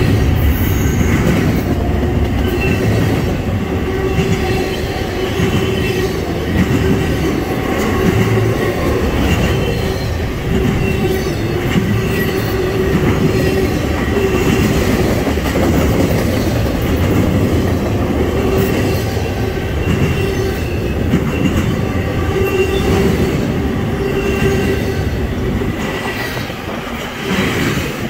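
Double-stack intermodal freight train's well cars rolling past at close range: a steady rumble of steel wheels on rail, with a thin ringing whine of the wheels over it.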